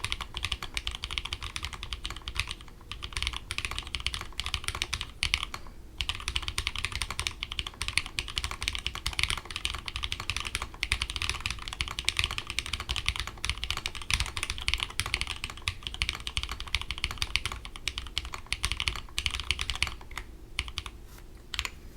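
Continuous fast typing on a split 75% mechanical keyboard in an acrylic case, with lubed Holy Milk switches (Gateron milky green housings, Halo True stems) under ABS keycaps: a dense run of keystroke clacks. It pauses briefly about three and six seconds in and thins out near the end.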